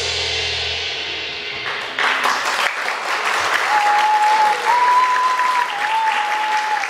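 The final sustained chord of a song fades out, and about two seconds in an audience breaks into applause that runs on. Over the clapping a single clear, whistle-like tone holds and steps up and down in pitch.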